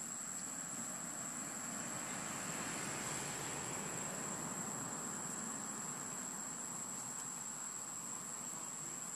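Steady outdoor insect drone: a constant high, thin note from crickets over an even background hiss, unchanging throughout.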